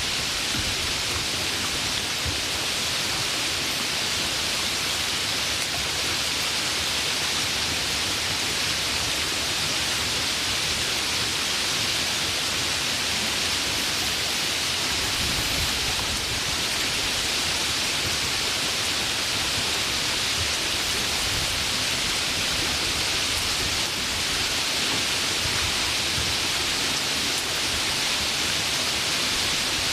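Steady heavy rain: an even, unbroken hiss, with no single drops or thunder standing out.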